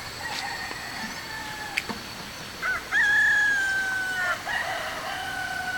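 Rooster crowing: a faint crow first, then a louder, drawn-out crow about halfway through that falls slowly in pitch and trails on toward the end.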